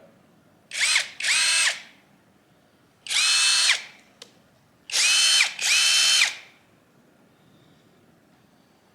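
Seyvum PD-BL10 21-volt brushless cordless drill/driver running free with no bit in the chuck, in five short trigger pulls: each time the motor whine climbs up to speed, holds briefly and winds down. The first pull is very short; the next four run well under a second each.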